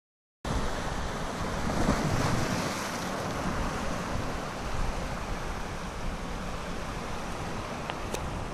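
Sea waves washing and foaming around shoreline rocks, with wind buffeting the microphone; the surge swells about two seconds in.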